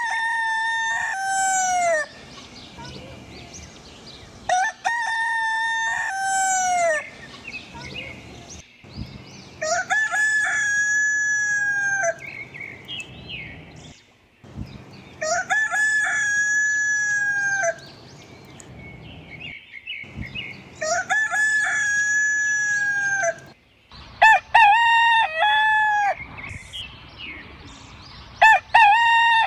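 Village rooster (ayam kampung) crowing repeatedly: about seven loud cock-a-doodle-doo calls, each around two seconds long, coming every few seconds.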